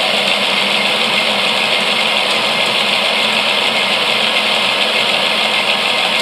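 Mould King 11012 motorised roller coaster running on its electric motors: a steady mechanical whirring of the drive and plastic gearing.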